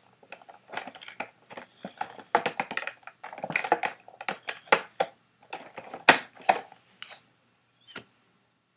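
Scissors snipping and cutting through a Rubik's Cube's packaging, an irregular run of sharp snips and crackles.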